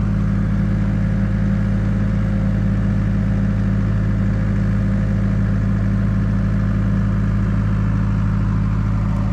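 Mini excavator's diesel engine running steadily while the hydraulics curl the bucket in against the thumb.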